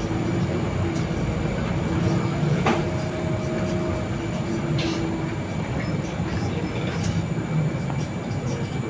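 Cabin of a Solaris Urbino 18 articulated city bus under way: steady engine and drivetrain hum, with a few sharp clicks.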